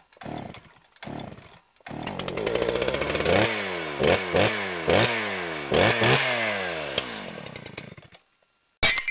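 A small petrol engine, chainsaw-like, gives a few short sputters, then catches and runs. It is blipped up and falls back in pitch about six times before dying away, and a short sharp crack comes near the end.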